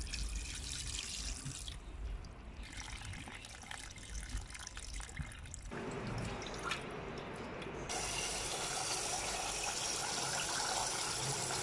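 Water sounds of rice being washed in a stainless steel pot: rinse water poured out and rice swished by hand in water. From about eight seconds in, a tap runs steadily into the pot, the loudest part.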